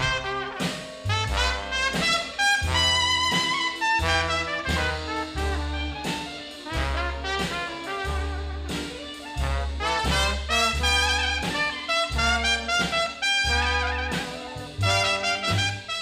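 Background jazz music led by a trumpet, with a steady bass line underneath.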